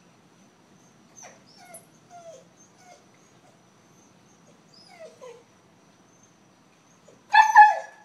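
Siberian husky whining softly, a handful of short whines that fall in pitch, then one loud yowl near the end as it 'talks'.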